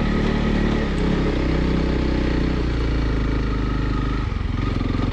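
Single-cylinder engine of a Honda CRF300 Rally motorcycle running steadily, its note changing about four seconds in.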